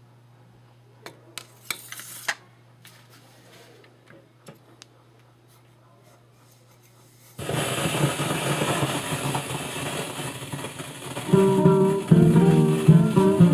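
Record changer being handled: a few sharp clicks and clunks over a low steady hum as a 45 rpm vinyl record is set on and the tone arm is moved. About halfway through, the stylus meets the groove and loud surface noise starts suddenly. Guitar music from the record comes in near the end.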